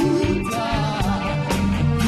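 Live band music, apparently an instrumental passage: bass and drums under a melody line that wavers in pitch.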